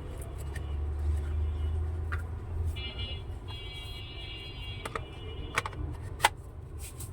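Handling noise while a sanding pad is fitted to an angle grinder's oscillating adapter: several sharp clicks and knocks in the second half, over a low hum, with a brief high ringing tone a little after the middle.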